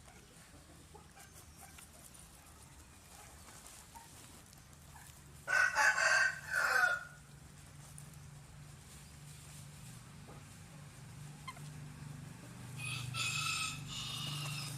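Rooster crowing: one loud crow about five and a half seconds in, lasting about a second and a half, then a second, quieter crow near the end.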